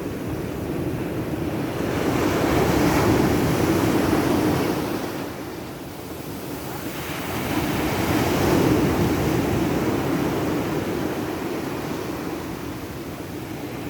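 Rough sea surf breaking on a beach: a steady wash of noise that swells as two big waves come in, about two seconds in and again around eight seconds, then eases.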